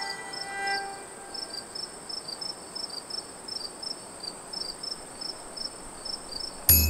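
Field crickets and other insects: a steady high-pitched drone with rhythmic chirps about three times a second. Violin music dies away in the first second, and a sudden loud low hum cuts in near the end.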